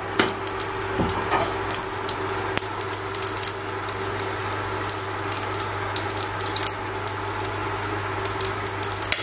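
Mustard seeds popping in hot oil in a pot under a glass lid: irregular sharp pops and crackles over a steady low hum.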